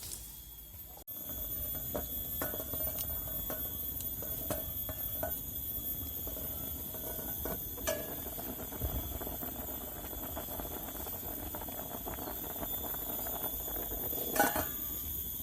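Steady high-pitched insect drone, with scattered clicks and crackles over a noisy bed and one sharper knock near the end.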